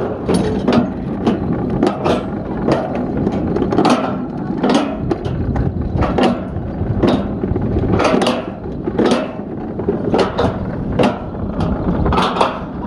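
Summer toboggan sled running in a steel chute: a steady rumble with sharp, irregular clacks, one or two a second, as it rides over the joints of the trough.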